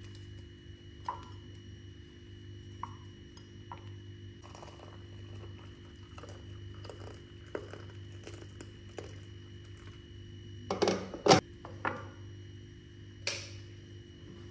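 Scattered light clicks and knocks of dishes and cutlery during a meal, over a steady low hum, with a louder cluster of knocks about eleven seconds in and another near the end.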